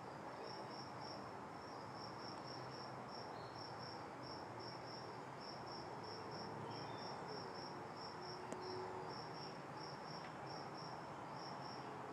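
Cricket chirping steadily, a short high chirp repeated about three times a second, over a faint steady background hiss.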